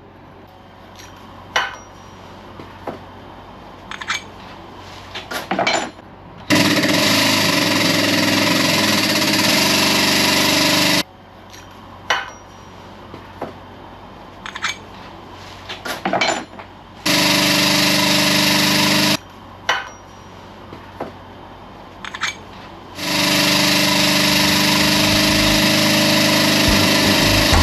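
Power tool running in three long bursts, the first and last about four seconds each and the middle one about two, during undercar work on a car's front suspension. Scattered metallic clicks and clinks sound between the bursts.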